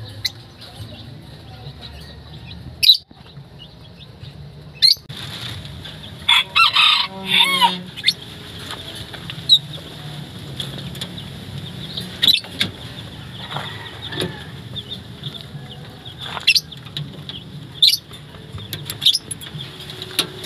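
Chickens clucking, with a rooster crowing once for about two seconds near the middle. Several sharp clicks and knocks come and go, the loudest a few seconds in.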